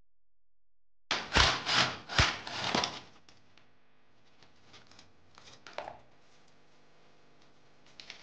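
Rough scraping and clattering of car hub parts being handled for about two seconds, then a few light clicks and taps.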